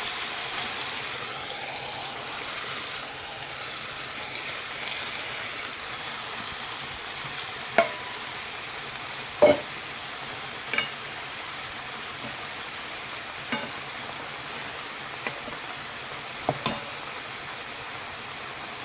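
Semi-dried pollock in a soy-sauce braising glaze, sizzling steadily in a pan, with a few sharp taps scattered through, the loudest about halfway.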